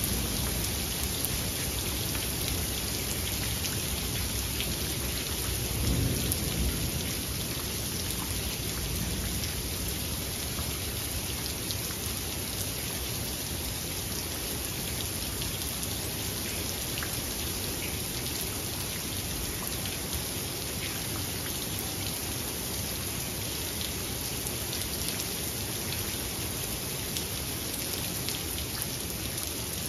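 Steady rain falling, with close drops ticking, and a low rumble of thunder that swells about six seconds in and then fades.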